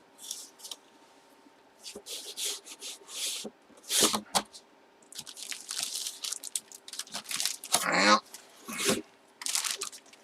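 Packaging being torn open and handled by hand: a series of short, uneven crinkling and tearing rustles as a Hit Parade jersey box is unwrapped.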